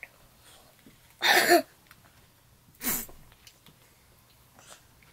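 A young child's voice in two short, loud non-word bursts, about a second and a half apart, the second one falling in pitch.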